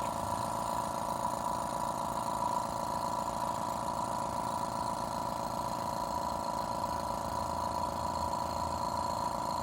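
Small electric air pump running with a steady hum, pushing cigar smoke at about 1 psi into the engine's intake for a vacuum-leak smoke test.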